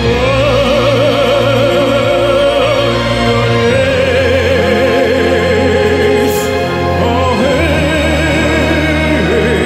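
Operatic tenor singing long held notes with wide vibrato over orchestral accompaniment; a new held note begins just under four seconds in, and the melody moves on near the end.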